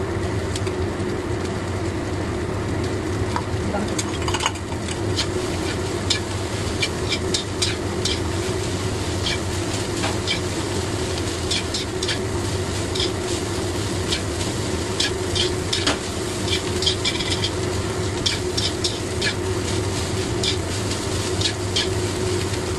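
Rice being stir-fried in a wok: a metal spatula scrapes and taps against the pan in quick irregular strokes over a steady sizzle, with a steady low hum underneath.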